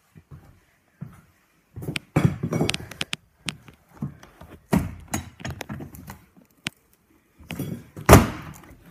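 Metal clunks and rattles of a school bus emergency exit being worked by its red release handle, a string of knocks ending in one loud thunk near the end.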